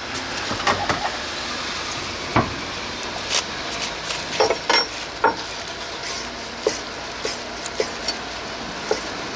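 Food-stall kitchen clatter: scattered knocks and clicks of utensils over a steady hiss, then light regular taps about twice a second in the second half.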